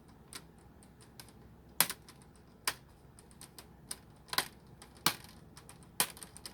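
Plastic clips of a laptop's screen bezel snapping into place one after another as the ring is pressed back onto the lid: a series of sharp, irregular clicks.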